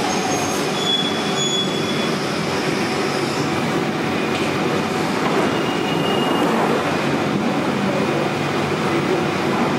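London Underground 1992 Stock train running into the platform and drawing to a stand, a steady rumble with two brief high-pitched wheel squeals, about a second in and about six seconds in.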